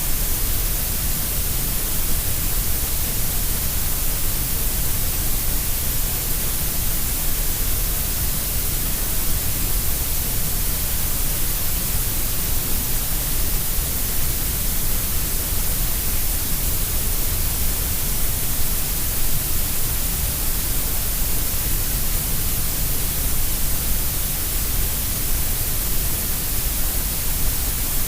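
Steady synthetic grey noise: an even, unchanging hiss with no pattern, heaviest in the deep bass and the top treble and thinner through the middle.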